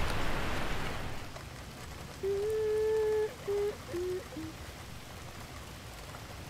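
Rain falling on a garden, a steady hiss that is louder in the first second or so. About two seconds in, a pitched note holds for about a second, then three short notes follow, each lower than the last.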